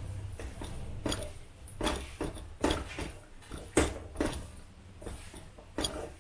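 Kitchen utensils knocking and scraping against a cooking pan as ground coconut and spice powder is tipped in and stirred into the jaggery mixture: a run of irregular sharp taps.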